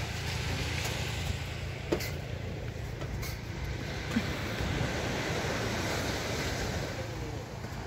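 Steady wind rumble on the microphone over a faint even hiss of surf, with a couple of short knocks about two and three seconds in.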